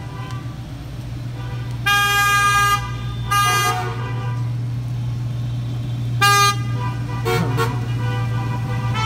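Car horns honking from a slow line of passing cars: a long honk about two seconds in, a shorter one a second later, and another short honk around six seconds. A steady low hum of engines runs underneath, with a couple of brief sharper sounds at about seven and a half seconds.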